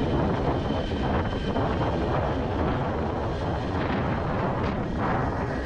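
Sport motorcycle riding at a steady speed: its engine running under a constant rush of wind over the microphone.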